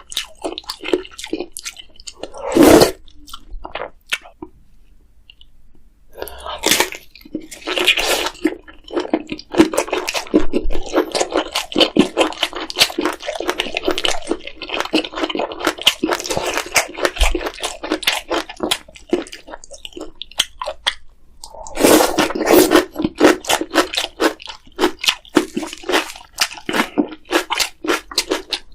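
Close-miked eating of spicy ramyeon noodles: wet chewing and rapid smacking clicks, with a few louder slurping surges, one near the start and another about three quarters through, and a brief pause in the chewing early on.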